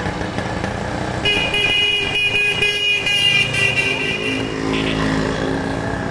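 Street traffic noise with a vehicle horn sounding steadily for about three seconds, starting about a second in; a lower-pitched tone follows near the end.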